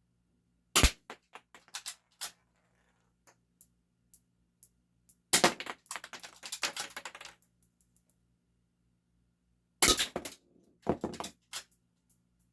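Game Face M311 full-metal spring-powered airsoft pistol being fired and re-cocked: three sharp snaps, about a second in, near the middle and near the end, each followed by a run of small metallic clicks and rattles.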